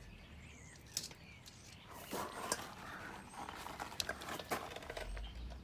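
Sharp plastic clicks and rubbing as automotive plastic push pins and the plastic door cover are handled and pressed into place: one click about a second in, then a quick run of clicks and scraping for about three seconds.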